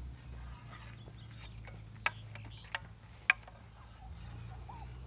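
Wooden practice swords knocking together as they clash: three sharp clacks about two seconds in, roughly half a second apart, the last the loudest.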